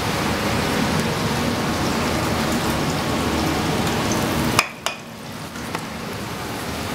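Hot frying pan of rendered guanciale fat sizzling steadily as the excess fat is poured off into a steel sink. About four and a half seconds in there is a sharp clack and the sizzle stops, leaving a quieter steady background.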